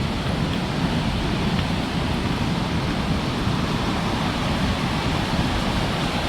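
Victoria Falls' water pouring down, a steady, even rush of noise with no breaks.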